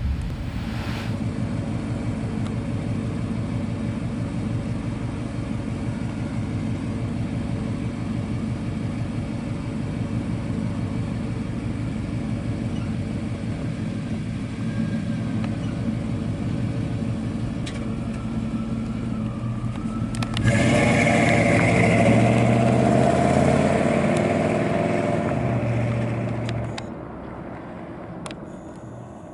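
1995 GMC Yukon's 5.7-litre V8 idling steadily, heard from behind at the exhaust. About two-thirds of the way in it is louder as the truck accelerates away, and then it fades as the truck drives off into the distance.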